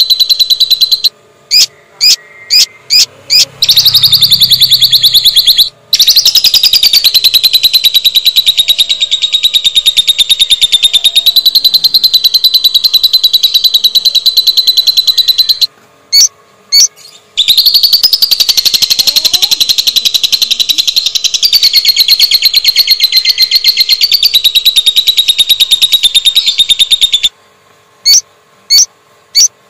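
Lovebird giving its long 'ngekek' call: a very rapid, high-pitched trilling chatter held for several seconds at a time. It breaks three times into a few short, sharp chirps: early on, about halfway through, and near the end.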